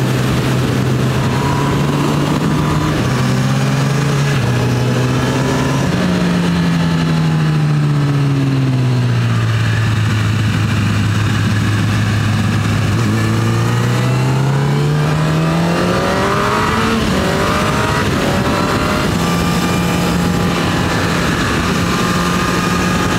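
Honda CB1000R's inline-four engine under way with wind rush at road speed. The engine note shifts a couple of times in the first few seconds, falls as the bike slows over about four seconds, holds low, then climbs again as it accelerates and settles to a steady cruise near the end.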